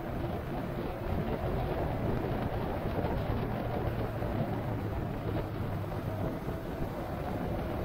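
A vehicle underway, its steady running noise mixed with wind rushing over the microphone, even throughout with no changes in speed.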